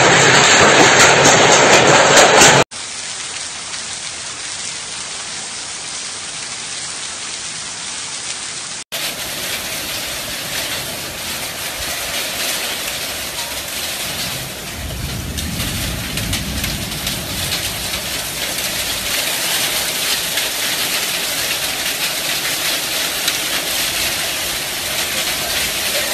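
Heavy hail and rain pelting down in a steady loud hiss, with the sound changing abruptly twice early on as the scene cuts. A brief low rumble comes in around the middle.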